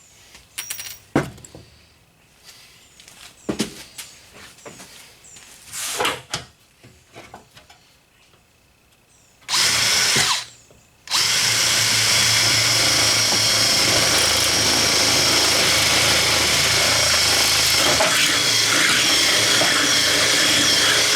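Scattered knocks and clanks, then a handheld power tool is triggered for about a second. From about eleven seconds in it runs steadily with a high whine, working the scrap sheet metal for a homemade radiator fan shroud.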